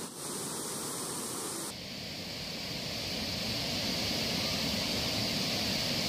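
Steady rush of a broad waterfall spilling over a dam wall, growing louder toward the end; the sound changes abruptly about two seconds in.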